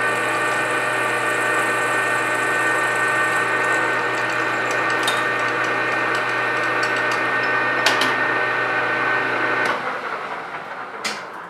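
Metal lathe running with a steady whine as a tailstock-held drill bores a muzzle brake blank, with a few sharp clicks from the cut. A little under ten seconds in, the lathe is switched off and spins down.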